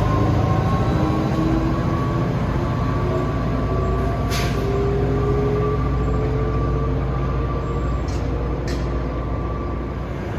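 NJ Transit commuter train rolling past: a steady rumble of wheels on rail with a few drawn-out whining tones that rise slowly, and three sharp clicks, one about four seconds in and two near eight seconds.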